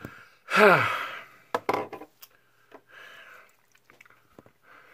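A man's loud, exasperated sigh with falling pitch about half a second in, his frustration at a child-resistant cap that won't open. It is followed by a few sharp clicks and soft breaths.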